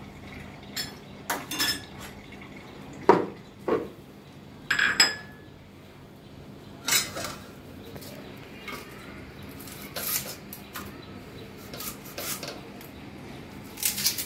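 Irregular clinks and knocks of metal on metal as an iron cutting tool and onions are handled in an aluminium tray, the loudest knocks about three and five seconds in.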